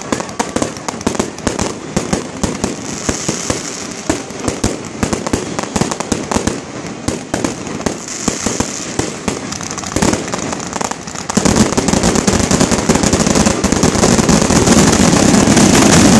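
Fireworks display: a rapid string of crackles and bangs from many shells and ground-level effects going off at close range. About eleven seconds in it grows louder and denser into a nearly continuous barrage.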